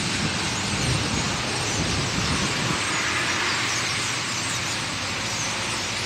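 Dense chatter of a huge flock of birds, a steady mass of overlapping chirps and calls, over the low rumble of road traffic.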